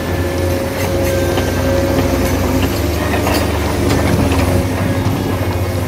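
Steady whir of a radio-controlled toy excavator's electric motors and gearboxes as it swings and works its arm, with scattered clicks and clatter.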